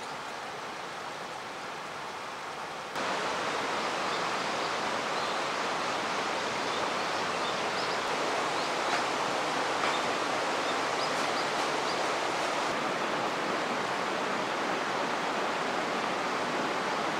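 Mountain river rushing over rocks in a steady, even roar of flowing water, growing louder about three seconds in.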